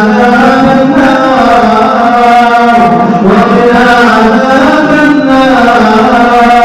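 Islamic supplication chanted in long, drawn-out melodic notes, as several held phrases that slowly rise and fall in pitch.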